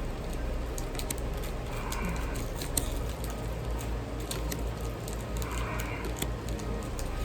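Pokémon trading cards and pack foil being handled: light crackling and scattered small clicks as the cards are slid and shuffled through the hands, over a low steady hum.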